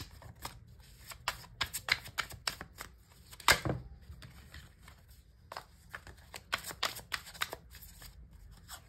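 Tarot deck being shuffled by hand: runs of quick papery card flicks and clicks, with one louder slap of cards about three and a half seconds in.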